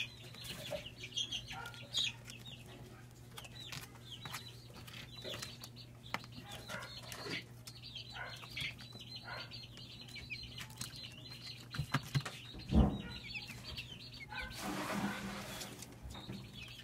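A brood of broiler chicks peeping continually, short high cheeps one after another, over a steady low hum. About thirteen seconds in there is a single knock, followed by a couple of seconds of rustling.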